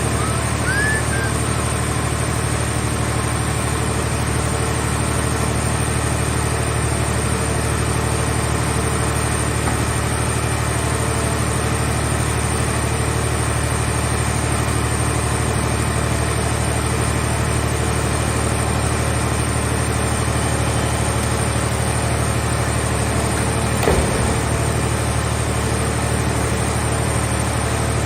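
Engine of a car-scrap baler running steadily at an even speed, with one sharp knock near the end.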